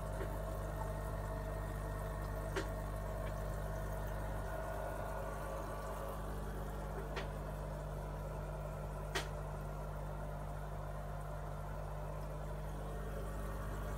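Aquarium pump running with a steady hum, water bubbling in the tank. A few sharp clicks break in, the loudest about nine seconds in.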